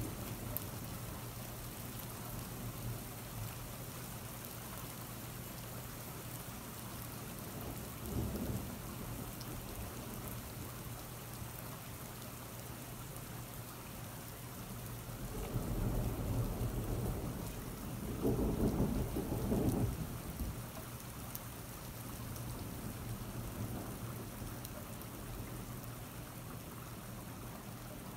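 Thunderstorm: steady rain falling, with thunder rumbling. There is a short rumble about eight seconds in, and a longer rumble in two swells a little past halfway.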